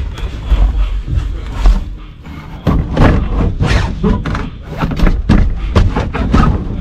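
Irregular thuds and knocks, several a second in the second half, with music playing in the background.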